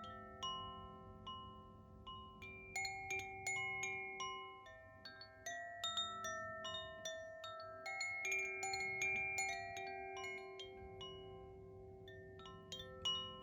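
Koshi 'Terra' chime ringing: its tuned rods are struck in irregular clusters of notes that ring on and overlap. A denser flurry of strikes comes near the end.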